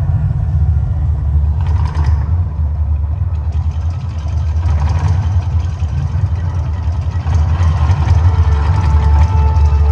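Deep, steady rumble of the Mirage volcano show's eruption effects, with brief hissing surges about two and five seconds in.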